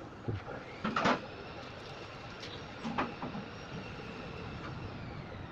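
A few sharp knocks, the loudest about a second in and another about three seconds in, over a steady mechanical hum like a vehicle engine running.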